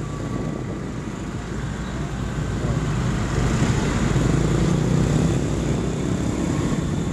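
Street traffic heard from within moving traffic: the rumble of vehicle engines and tyres. It gets louder near the middle as a loaded cargo truck is passed at close range.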